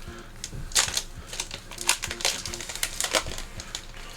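Foil Pokémon booster pack being torn open and its cards handled: crinkling with several separate sharp, crisp snaps.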